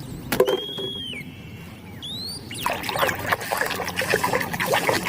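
Water splashing and trickling as a muddy plastic animal toy is washed, starting about two and a half seconds in. Before that, a click, a short high whistle-like tone and a rising chirp.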